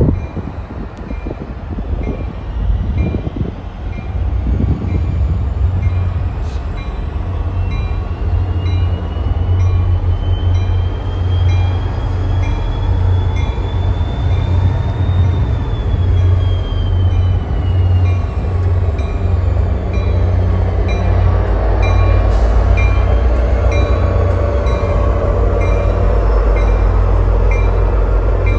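An NJ Transit EMD F40 diesel locomotive running with a steady low engine drone that grows louder near the end as it moves past. Its bell rings at an even pace throughout, and a faint whine rises and then falls around the middle.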